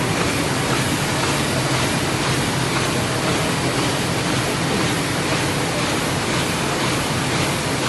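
MAN Roland 70x100 sheet-fed offset printing press running: a loud, steady, even machine noise with a low hum underneath.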